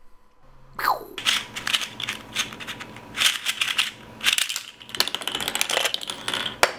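Plastic layers of a black speed cube turning and clicking under the fingers, in repeated bursts of clattering and scraping.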